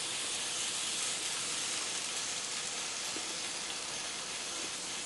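Steam-locomotive chuff from an MRC HO sound decoder's speaker, its chuff rate boosted so high that it runs together into a steady hiss.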